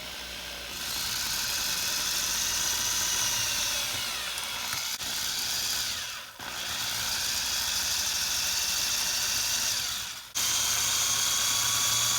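Power drill with a 5/32-inch bit drilling out the rivet of a Hot Wheels die-cast car, a steady whine whose pitch wavers under load. It dips briefly about halfway through and stops for a moment near the end before starting again.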